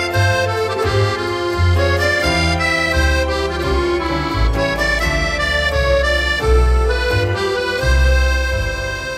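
Instrumental background music: a melody of held, changing notes over a bass line that moves about every half second.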